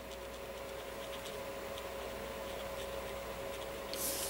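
Quiet room tone with a steady electrical hum and a few faint soft ticks as a blender pen's brush tip dabs colour onto stamped cardstock. A brief scratchy rustle comes near the end.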